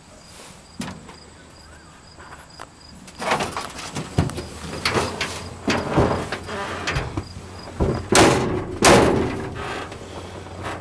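Clunks and rattles of the old Ford truck's cab being handled, starting about three seconds in, with two loud bangs near the end. Crickets chirp faintly and steadily in the background.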